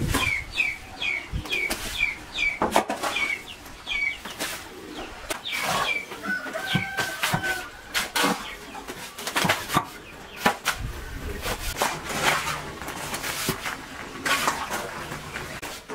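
Chickens clucking, with a bird chirping a short, quickly repeated call over the first few seconds. Irregular sharp knocks and rustles come throughout.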